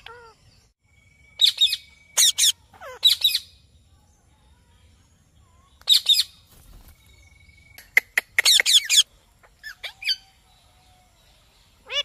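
Rose-ringed parakeets calling: shrill, rapid screeches in several short bursts, separated by pauses of a second or two.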